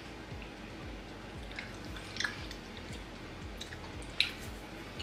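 Faint chewing of a soft, chewy chocolate lolly, with small sharp mouth clicks about two seconds in and again near four seconds.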